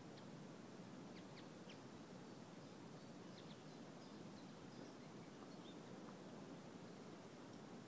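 Near silence: faint steady background hiss with a few faint, short bird chirps scattered through the first few seconds.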